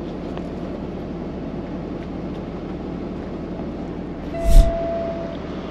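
Steady low rumble of the Peterbilt 579 truck's diesel engine idling, heard from inside the sleeper cab. About four and a half seconds in comes a single loud thump, followed by a brief steady tone lasting about a second.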